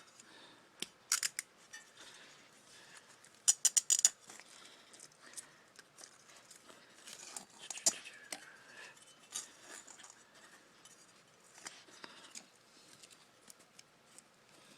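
Scissors snipping through a car speaker's parts as it is taken apart: scattered sharp clicks, with a quick run of four snips about three and a half seconds in.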